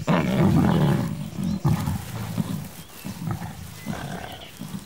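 Male lion growling: a loud, low, rasping growl right at the start, then several shorter growls.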